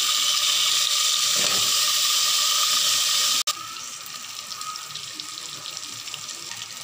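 Hot oil sizzling loudly as wet goat trotters, fresh from turmeric water, go into the tempering. The sizzle cuts off abruptly a little past halfway, and a quieter sizzle carries on.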